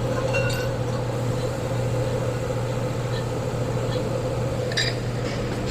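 Steady low mechanical hum of a running motor or engine, with a few light metallic clinks of tools or car parts being handled, a small cluster near the start and a sharper one near the end.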